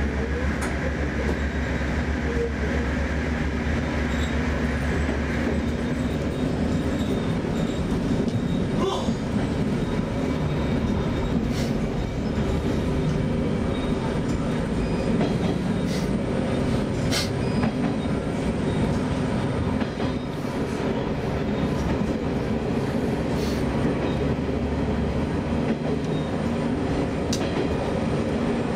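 Diesel railcar running along single track, heard from the cab: a steady rumble of wheels and running gear. It is louder with a strong low hum while in a tunnel, and the sound opens out about five seconds in as the train leaves it. Later there are a few sharp, isolated clicks.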